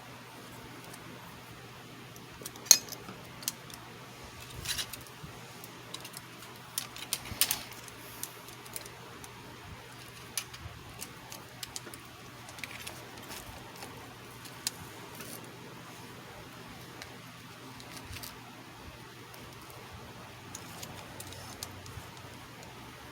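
Scattered light metallic clicks and taps of small hand tools being handled during an LCD screen repair, the sharpest about three seconds in and around seven seconds in, over a steady low electrical hum.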